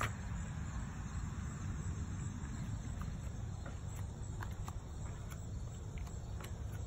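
Outdoor background with a steady low rumble and a handful of faint, sharp clicks spread through the middle and later part.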